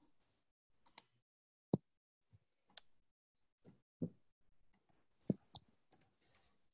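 About half a dozen faint, irregularly spaced clicks and taps of computer mouse and keyboard handling at a desk, with near silence between them.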